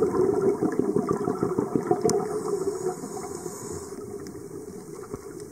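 Underwater sound picked up through a dive camera housing: a diver's scuba exhaust bubbles gurgling and crackling, easing off after about three seconds, with a sharp click about two seconds in.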